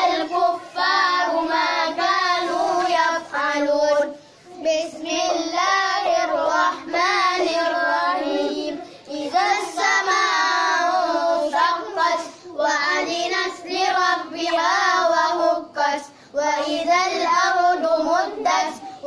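A child reciting the Quran aloud in Arabic in a melodic chant (tilawah). Long wavering phrases are broken by short pauses for breath about every three to five seconds.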